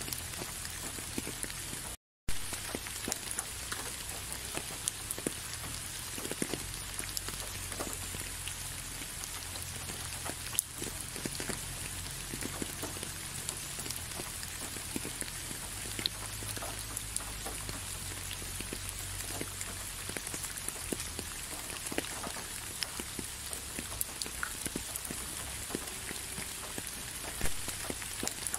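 Steady rain, an even hiss with many separate drops ticking through it. The sound cuts out to silence for a split second about two seconds in.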